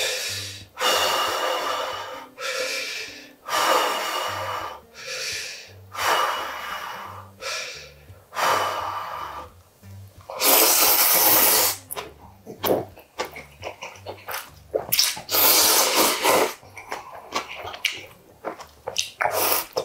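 Slurping of spicy instant ramen noodles: short slurps about a second apart, then longer, louder slurps about ten and fifteen seconds in. Soft background music plays underneath.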